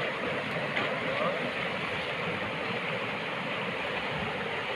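Steady rush of water running through a shallow, rocky stream.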